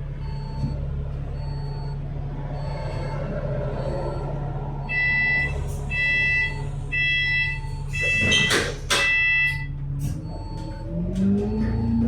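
Bus engine idling with a steady hum while a soft warning beep repeats, then a louder chime beeps five or six times as the doors close, with a rush of air noise about eight to nine seconds in. Near the end the engine note rises as the bus pulls away.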